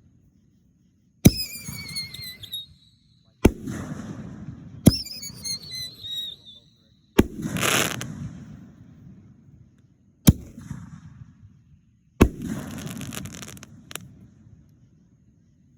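Fireworks going off: about seven sharp bangs a second or two apart, each trailing off in crackling and rumbling echo. Two of the bangs carry a high whistle that falls slowly in pitch.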